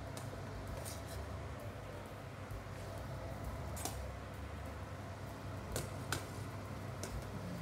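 Stock boiling steadily in a stainless steel saucepan over a gas burner, with a few light clicks of a metal ladle against the pot, the sharpest about four and six seconds in.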